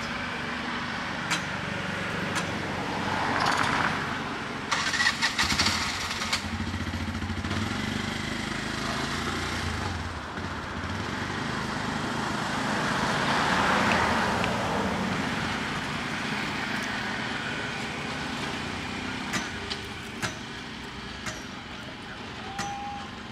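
Motor vehicles passing, the noise swelling and fading twice, about three seconds in and again about thirteen seconds in, over steady background noise. A few sharp clicks come about five to six seconds in.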